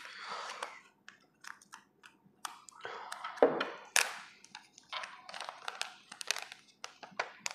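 Clear plastic protective film crinkling and crackling as it is handled and peeled off a new smartphone: a string of sharp clicks and short rustles.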